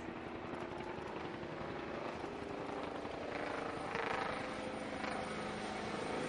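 UH-1J helicopter hovering low and edging closer: a turbine whine over the even chopping of its two-bladed rotor, growing gradually louder.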